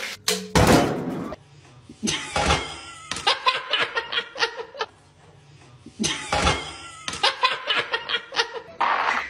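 A sudden thump near the start, then two long bouts of laughter, each a run of quick repeated bursts.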